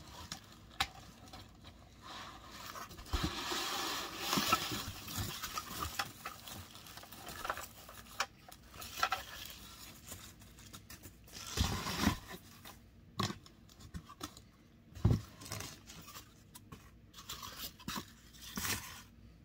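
Rustling and scraping of packing material as a plastic G.I. Joe Havoc toy vehicle is unwrapped from a white sheet and lifted out of a cardboard box. There are scattered clicks and a few knocks of hard plastic and cardboard being handled, heaviest about twelve and fifteen seconds in.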